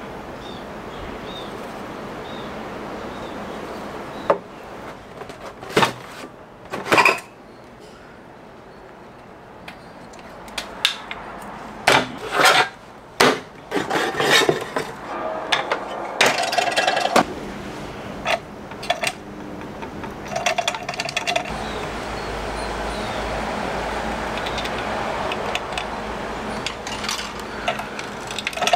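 Handling noises at a wooden workbench: a rag rubbing over an oiled wooden slingshot fork, scattered sharp knocks and clicks, and a cardboard box being handled and opened. A steady low hum with a hiss starts about three-quarters of the way through.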